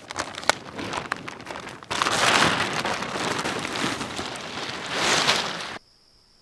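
Large tarp being pulled down and dragged over the ground: rustling and flapping of the fabric, with a few sharp clicks at first and much louder, steady rustling from about two seconds in. It cuts off abruptly near the end, leaving a faint, steady insect trill.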